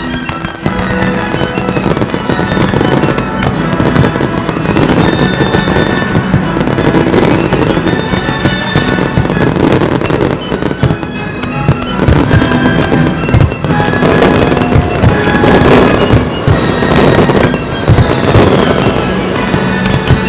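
Fireworks display: aerial shells bursting in a rapid run of cracks and booms, densest in the second half, over accompanying music with held notes.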